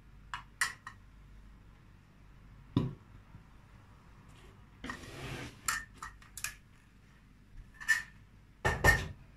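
Ceramic soup bowl, saucer, metal ladle and soup pot clinking and knocking as soup is served and the bowl set down on a table: a few sharp clinks, a dull knock about three seconds in, a short scrape around five seconds, and the loudest knocks near the end.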